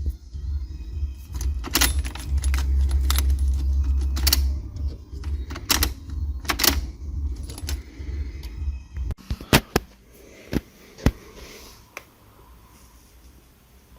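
Keys jangling with a run of sharp metallic clicks over a low rumble. The rumble cuts off about nine seconds in, leaving a few separate clicks.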